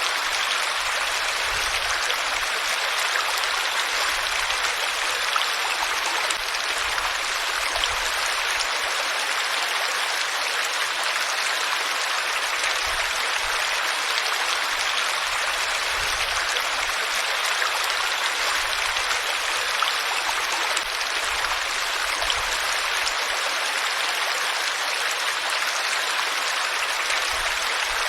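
Flowing water running steadily, an even rushing splash with no change in level.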